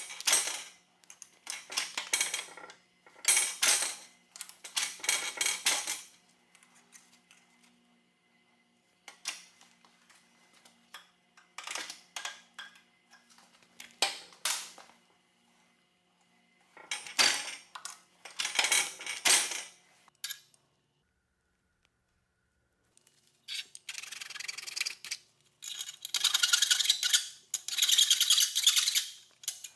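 Aluminum pieces being handled against a steel vise and a steel welding table: intermittent metal-on-metal scraping and clinking in bursts about a second long, busiest near the end.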